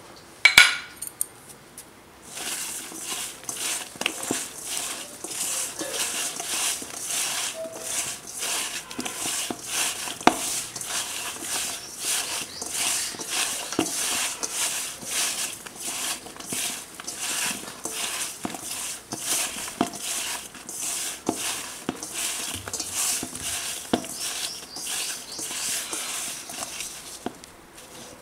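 Raw banana slices being tossed by hand with spice powder in a stainless steel bowl: a continuous run of small clicks, slaps and scrapes of the slices against the metal, starting about two seconds in. A single sharp ringing clink comes about half a second in.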